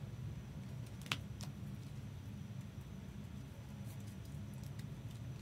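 A few light clicks and taps over a steady low hum. The sharpest click comes about a second in, and more follow near four seconds.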